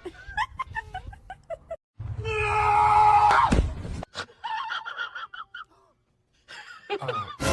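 Vocal cries across quick cuts: short pitched yelps, then one loud drawn-out cry of about a second and a half, then more short cries.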